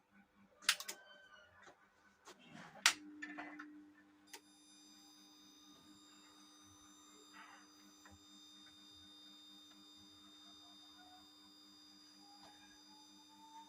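A few sharp clicks, then a steady electronic tone sets in and holds, joined a second later by a thin high-pitched whine.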